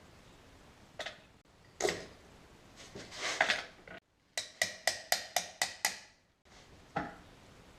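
Metal tools and car parts being handled during work on a front half shaft and CV joint. There are scattered knocks and a short metallic clatter, then a quick run of about eight sharp ringing metal clicks, about five a second.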